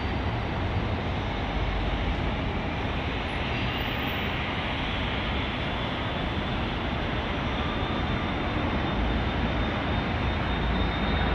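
Distant jet noise from the Embraer Praetor 600's twin Honeywell HTF7500E turbofans at takeoff power during the takeoff roll. It is a steady rush with a faint high whine slowly rising in pitch, growing louder near the end.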